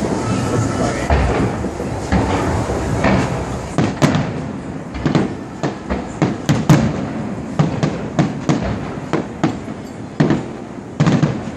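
Aerial fireworks going off: a rapid run of sharp bangs and cracks, thickest from about the middle to near the end, over a steady background noise.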